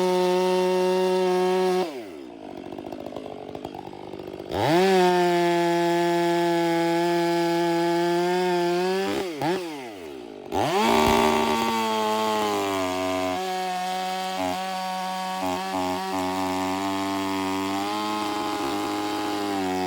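Two-stroke chainsaw running at high revs. The throttle is let off twice, the engine note falling away and then climbing back. In the last several seconds it settles to a lower, uneven-running speed with brief stutters.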